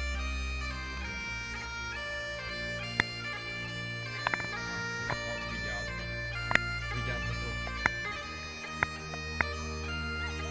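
Background music: a melody stepping between held notes over steady low drone tones, with a few sharp clicks.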